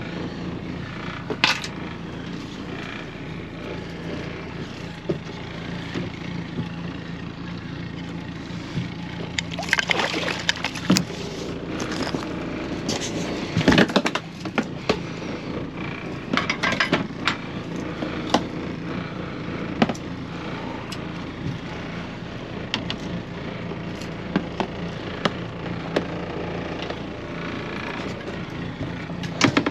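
A motor running steadily with a low hum, with scattered sharp knocks and clatter, clustered between about a third and just past half of the way through.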